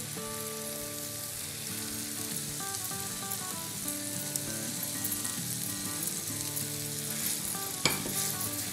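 Chicken pieces and spice masala sizzling in a frying pan as tomato purée is added and stirred in, under soft background music. A single sharp tap sounds near the end.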